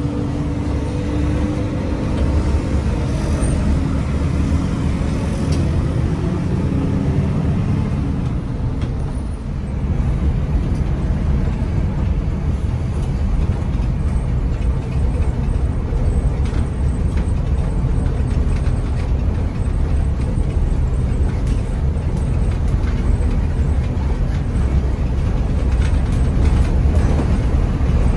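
Hino R260 bus underway: steady diesel engine sound with road noise, heavy in the low end.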